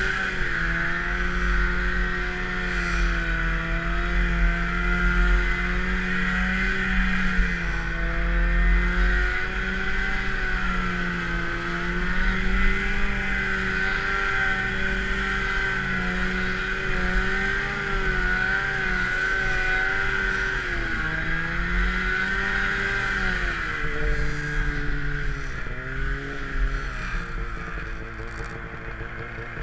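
Snowmobile engine running as the sled travels over snow, its pitch rising and falling with the throttle. It drops in pitch a couple of times about two-thirds of the way through and grows quieter near the end.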